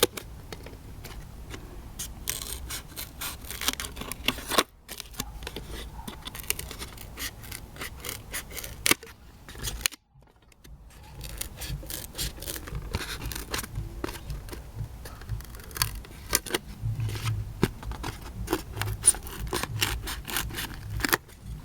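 Scissors cutting through a polystyrene foam (porexpan) tray: a run of sharp squeaky snips and crackles, with brief pauses about 5 and 10 seconds in.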